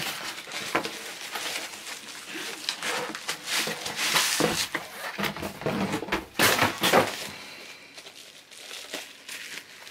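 Cardboard record mailer being handled and folded open: irregular rustling and scraping of cardboard, loudest a little past the middle. Then bubble wrap crinkles as the wrapped LP is lifted out.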